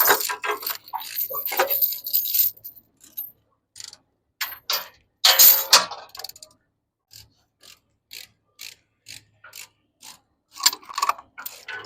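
Scattered metal clicks and clinks, with one louder rattle about five and a half seconds in.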